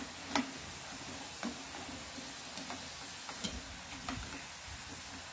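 Urad dal vadas deep-frying in hot oil, with a steady sizzle. Several sharp metal clicks come from a slotted spoon knocking against the frying pan, the loudest about half a second in.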